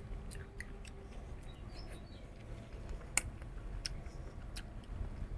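Close-miked eating: a person chewing goat-head meat, with scattered sharp clicks and crunches, the loudest about three seconds in.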